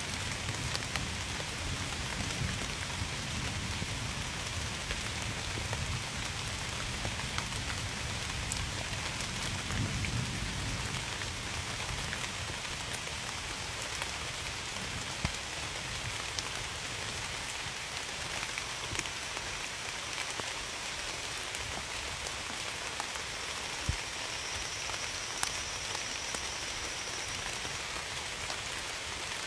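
Steady rain falling on surfaces, with scattered sharp drops. A low rumble of distant thunder runs under it through the first half and dies away.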